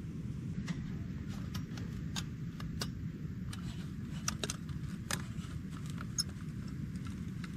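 Scattered light clicks and taps of small camping stove gear being handled, over a steady low rumble in the background.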